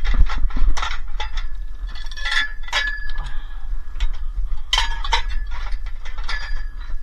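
Metal tubes and steel-framed chairs clinking and clanking as they are handled. The knocks are sharp and irregular, and several leave a short metallic ring, over a low rumble.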